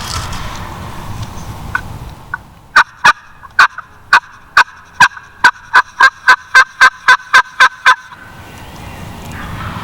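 Hunter's turkey call sounding a long run of about sixteen sharp, loud yelping notes, quickening slightly toward the end, to coax a stubborn gobbler in, after two soft clucks.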